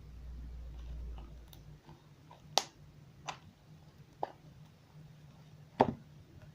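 Slime being squeezed and worked by hand, giving off sharp popping clicks, four clear ones with fainter ticks between, after a low rumble for the first two seconds.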